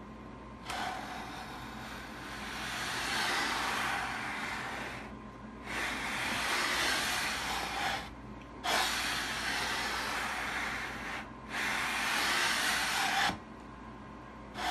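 A flat board faced with 80-grit sandpaper rubbing along the top edge of a guitar's rim, its sides and linings: four long hissing strokes of two to four seconds each with short pauses between. The rim is being sanded level until it is even on both sides, to set the gentle curve the top will be glued to.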